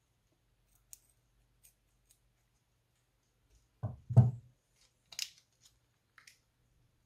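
Scissors snipping the tip of a plastic piping bag filled with clear slime, a few small clicks in the first two seconds. About four seconds in come two dull thuds, the loudest sounds, then a sharper crackle and a few smaller ones as the slime is squeezed out of the bag.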